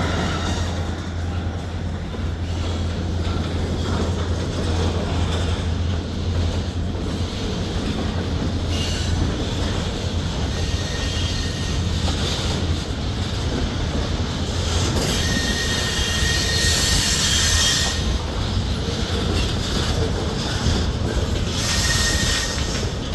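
Escanaba & Lake Superior freight train rolling past with a continuous rumble of steel wheels on rail. A low diesel drone fades over the first several seconds. High wheel squeals come and go several times.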